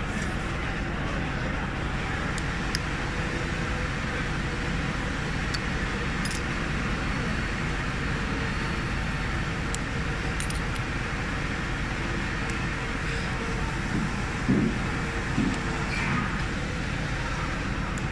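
Steady machine noise from a glass-cutting machine, with a few light, sharp clinks as small cut glass strips are handled on its bed, and a couple of soft knocks late on.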